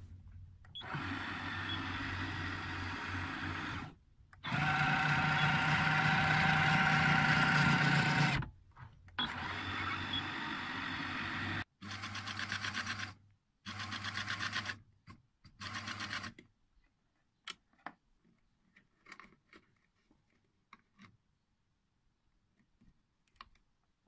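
Electric motor and gearbox of a Raymarine ST1000+ tillerpilot driving its push rod, a steady whine in six runs of one to four seconds, the longest and loudest in the middle of the first half. After that come only faint clicks.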